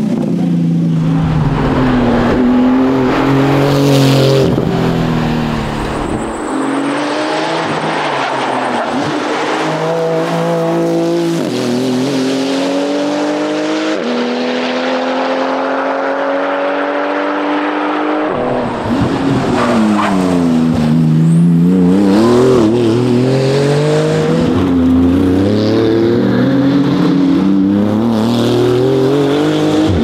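Porsche 911 GT2 RS's twin-turbo flat-six at full throttle. Its pitch climbs steadily through each gear and drops at every upshift. About two-thirds of the way through it falls away and winds up again, as the car slows for a bend and accelerates out.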